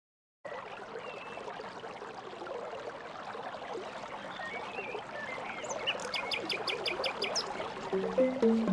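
Jungle ambience of steady running water, like a stream, cutting in abruptly about half a second in, with scattered short bird chirps and a quick run of high ticking clicks about six seconds in. Plucked background music begins near the end.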